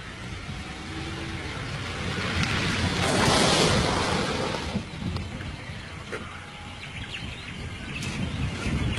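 Outdoor background noise, with a rush that swells about three seconds in and dies away over a couple of seconds.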